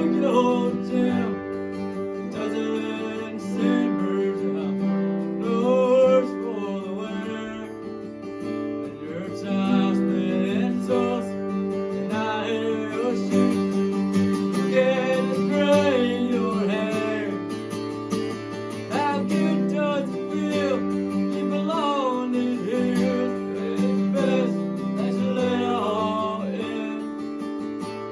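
Acoustic guitar strummed steadily through a country song, with a sliding, wavering lead melody line above the chords.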